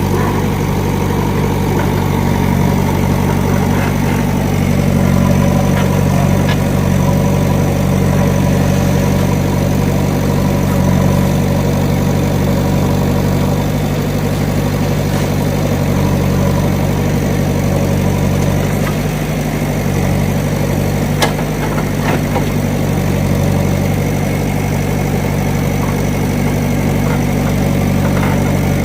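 JCB backhoe loader's diesel engine running steadily, with one sharp click about two-thirds of the way through.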